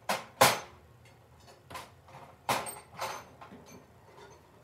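Metal hand tools being handled and set down: a few sharp clicks and knocks, the loudest about half a second in, with more around two and a half and three seconds.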